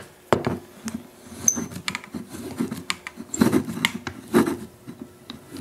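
Rotary pipe cutter being turned around 1¼-inch PVC pipe, its cutting wheel scraping into the plastic in irregular strokes with sharp clicks.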